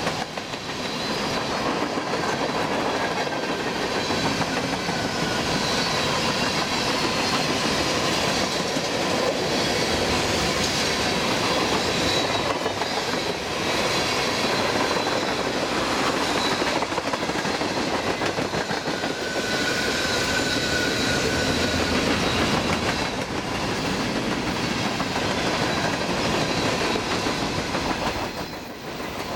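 Freight cars of a long freight train rolling past close by: a continuous rumble and clatter of steel wheels on the rails. Thin high squealing tones run through it, one briefly louder about two-thirds of the way in.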